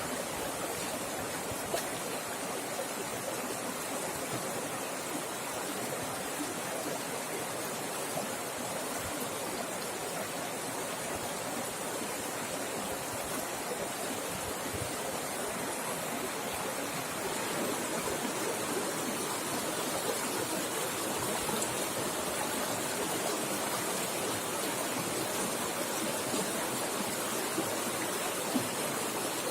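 River water flowing fast over rocks: a steady rushing with small splashes, a little louder from about halfway through.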